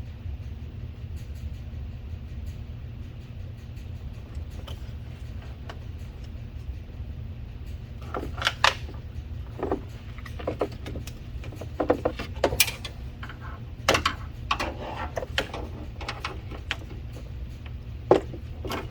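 Scattered clicks and knocks of the door latch assembly and its cables being handled and fitted, starting about eight seconds in, over a steady low hum.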